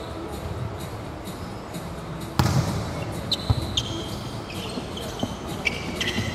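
Volleyball play on a hardwood indoor court. The ball is struck hard about two and a half seconds in, followed by further sharp ball contacts and several short squeaks of sneakers on the floor, in the echo of a large empty arena.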